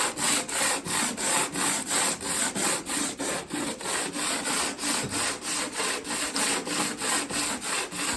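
Extruded metal carburetor adapter plate rubbed back and forth on 80-grit sandpaper in quick, even strokes, about three to four a second, with a rhythmic rasp. The base is being lapped flat to grind down a high spot in the middle that makes it rock and leak vacuum.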